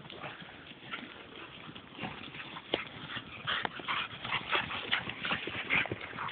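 Dogs at rough play: a string of short, irregular scuffling noises with small whimpers and yips.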